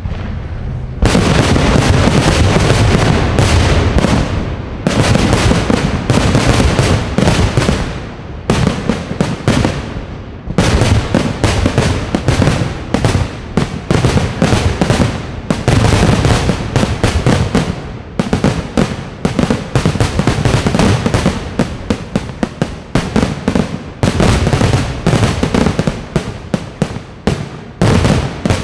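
Dense barrage of aerial firework shells bursting, a rapid string of booms and crackles. It starts about a second in and keeps going, with only brief lulls.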